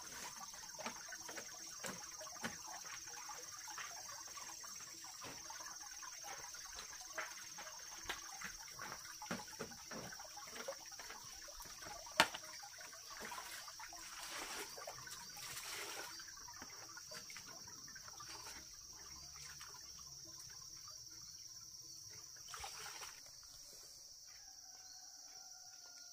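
Faint steady high-pitched insect drone, with scattered small clicks and trickling like water being handled. The clicking thins out after about 16 seconds.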